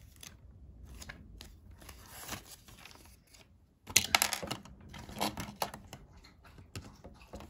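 LEGO plastic bricks being handled and pressed together: scattered small clicks and rattles, with a cluster of sharper, louder clicks about four seconds in.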